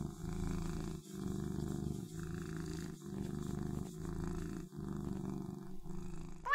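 A cat purring, in steady cycles about once a second.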